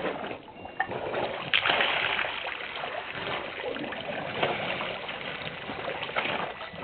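African elephants drinking at a waterhole: water splashing and trickling from their trunks, with a louder splash about a second and a half in.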